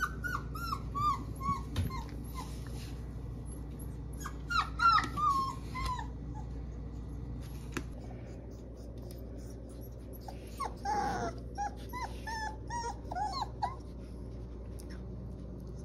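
Four-week-old puppies whimpering in runs of short high cries: one run falling in pitch at the start, another about four seconds in, and a third near the end. The puppies are unsettled by the slippery wooden floor under their feet.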